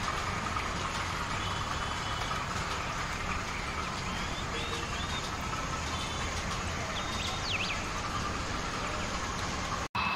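Model railway train running on the layout: a steady hum and rumble of motor and wheels, with a few faint high chirps. The sound drops out for an instant near the end.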